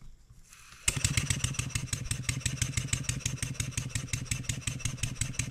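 Stuart 7A model steam engine running on compressed air, set going by a spin of the flywheel about a second in, then a fast, even exhaust beat of roughly nine puffs a second. It sounds a whole lot smoother, its valve eccentric timing freshly adjusted.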